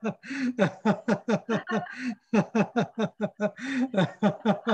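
Deliberate, sustained laughter from a guided laughter exercise. It comes in fast "ha-ha" pulses, about five a second, broken by gasping in-breaths roughly every second and a half.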